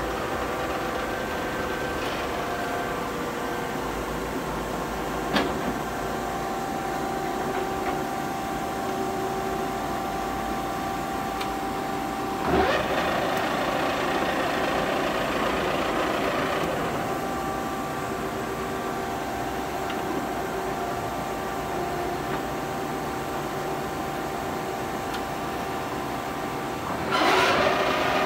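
1970 Webster & Bennett 48-inch vertical turret lathe running, its table and four-jaw chuck spinning under power: a steady mechanical hum with several held tones. A sharp click comes about five seconds in, a louder rushing noise swells for a few seconds a little before halfway, and another loud burst comes near the end.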